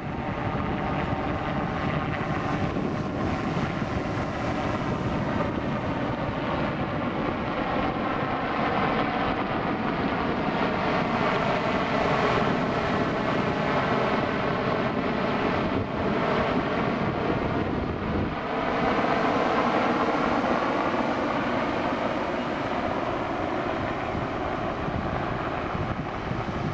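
Royal Navy Westland Sea King rescue helicopter flying past: the twin turboshaft engine whine and rotor noise swell through the pass, loudest past the middle, and ease off near the end. The pitch of the engine whine glides as the helicopter goes by.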